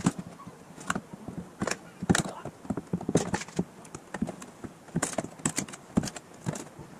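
A metal hand tool scraping and picking at a freshly cut groove in the wooden edge of a boat hull, widening the slot: irregular scrapes, clicks and light knocks.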